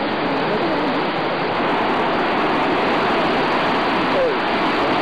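Steady, loud rush of falling water from a waterfall.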